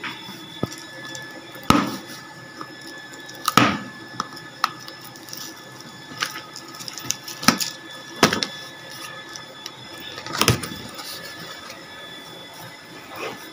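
A cardboard TV carton being handled and its tape cut open with scissors: scuffs and scraping, with about five sharp knocks from the box.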